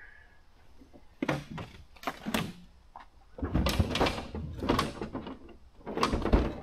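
Camping gear being handled and rummaged through: three bouts of scraping, sliding and knocking, the busiest and longest about halfway through.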